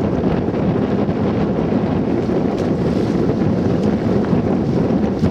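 Steady wind rushing over the microphone on a moving boat.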